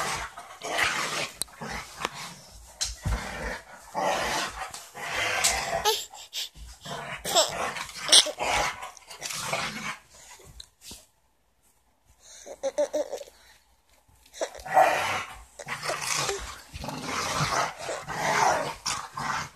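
Two pit bull-type dogs play-fighting and growling, mixed with a baby's bursts of laughter. The sounds stop for about a second about eleven seconds in, then pick up again.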